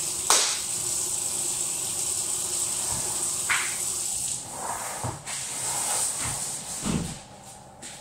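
Kitchen tap running into a stainless-steel sink, a steady rush of water that stops about seven seconds in, with a few knocks and clinks of things handled in the sink.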